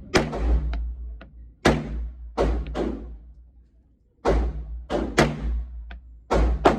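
Gunshots fired one at a time at an uneven pace, about nine loud cracks, each with a short echoing tail, with a few fainter sharp cracks in between.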